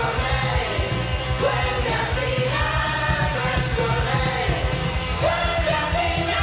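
Rock song: a singer's voice over a full band with a steady beat.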